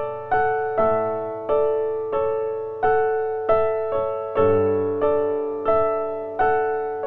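Background music: a slow, gentle piano melody, one note struck about every 0.7 seconds and left to fade.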